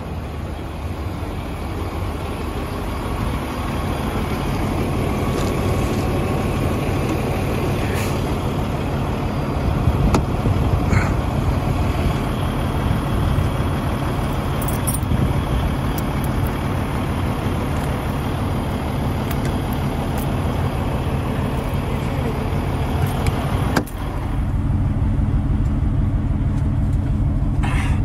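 Kenworth semi truck's diesel engine idling steadily. Near the end there is a sharp click, after which the idle sounds duller.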